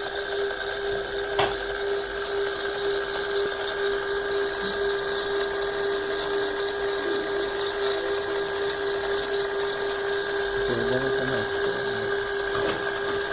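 Small high-speed spindle motor of a mini CNC milling machine running steadily with an even whine. There is one sharp click about a second and a half in.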